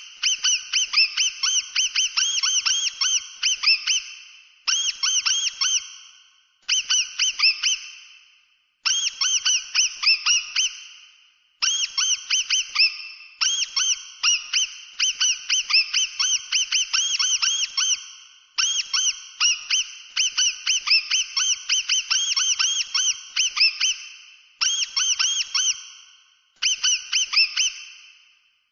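Mouse squeaking: rapid runs of short, high chirps, several a second, in bursts of one to four seconds separated by brief pauses.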